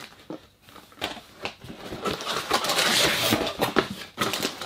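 A large cardboard LEGO set box being opened by hand: a few light knocks and clicks, then the lid sliding and scraping off for about a second and a half, followed by more handling clicks.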